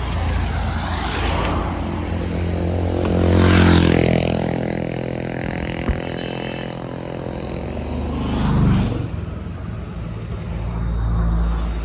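Road traffic passing close by: several vehicles go by one after another, each with an engine hum and tyre noise that swells and fades. The loudest pass comes about four seconds in.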